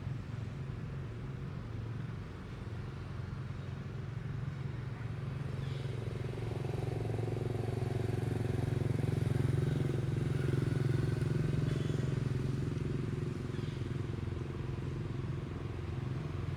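A motor vehicle engine running, growing louder through the middle and easing off again, like a motorbike passing.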